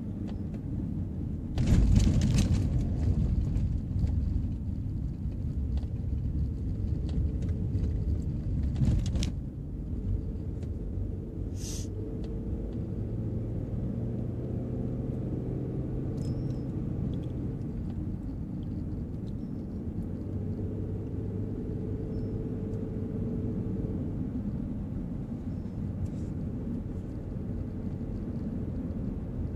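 Car driving on a winding road, heard from inside the cabin: a steady low engine and road rumble. From about two seconds in to about nine seconds in, a louder rushing hiss rises over it, then settles back to the steady rumble.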